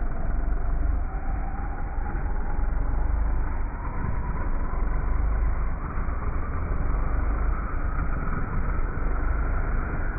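Turbocharged 2JZ straight-six of a JZA80 Toyota Supra running steadily, its exhaust leaving through a straight hood-exit "hater pipe": an even, low rumble with a faint whine rising slowly in the second half.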